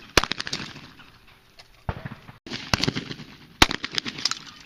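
Shotgun fired at trap clays: four sharp blasts, each trailing off in a rolling echo, with lighter clicks and pops between them.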